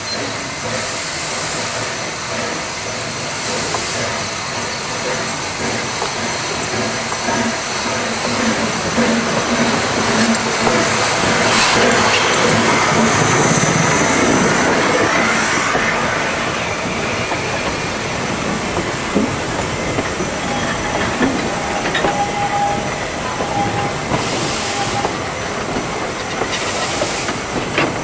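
East Broad Top narrow-gauge steam locomotive with hissing steam rumbles past close by, loudest as the engine goes by. Then its passenger cars roll past, with clicking from the wheels over the rail joints and a short wheel squeal.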